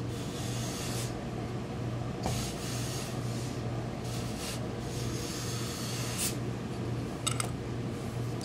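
Tailor's steam iron pressing suit fabric: several short hisses of steam as the iron is worked over the cloth, over a steady low hum.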